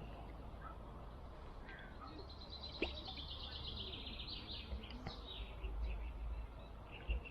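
A songbird singing a fast trill of repeated high notes, falling slightly in pitch, from about two seconds in until about five seconds, with a shorter phrase near the end. Under it runs a steady low rumble, with a couple of sharp clicks.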